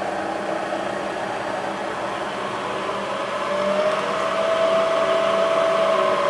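Bridgeport vertical mill's freshly rebuilt 2 HP head running, a steady mechanical whine over a hum. The whine rises slightly in pitch and gets louder about three and a half seconds in.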